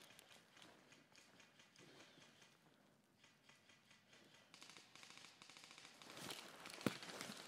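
Near silence for the first half; then faint footsteps crunching on dry pine needles and leaves begin and grow a little louder, with one sharper knock near the end.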